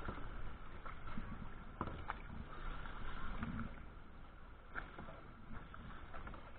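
Kayak paddle strokes dipping and splashing in the water beside a plastic sit-on-top kayak, over a constant low rumble.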